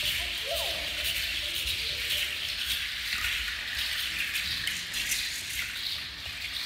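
Rattles of Aztec dancers shaking continuously, a dense steady hiss of fine clicks.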